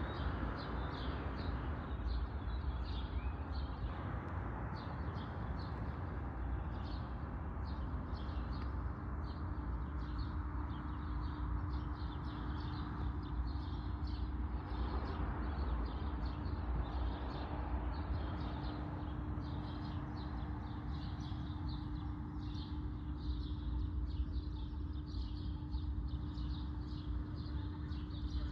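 Small birds chirping over and over, short high chirps, over a steady low street rumble. A steady low hum joins about ten seconds in.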